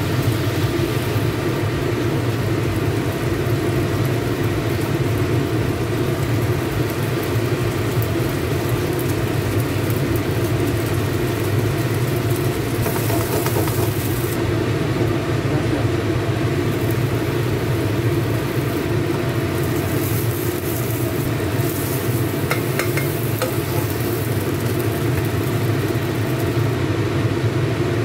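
Oysters and starch batter sizzling in a frying pan as an oyster omelette cooks, over a steady low hum.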